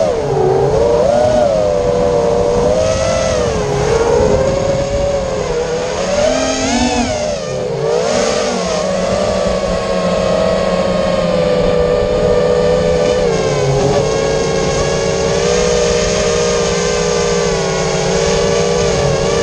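FPV racing quadcopter's electric motors and propellers whining, several tones at once, the pitch rising and falling with the throttle, with a sharp rise and fall about seven seconds in.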